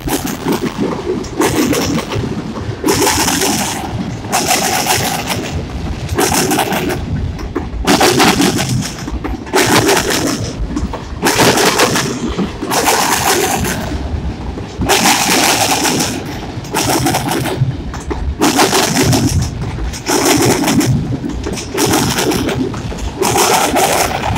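A freight train of double-stack container well cars rolling past close by. Its wheels and couplings set up a loud clatter that comes in bursts about every one to two seconds.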